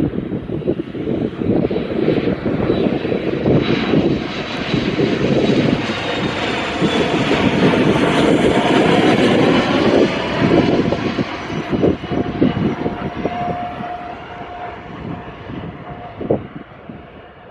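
Avro RJ100 four-engine regional jet passing on landing, its turbofans making a rumble with a high whine. The sound builds for several seconds to a loud peak about halfway through, then fades away.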